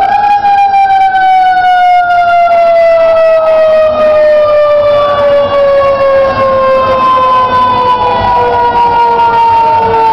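Fire engine siren wailing, its pitch falling slowly and steadily for the whole stretch after a quick rise at the start, with other sirens rising and falling more faintly behind it.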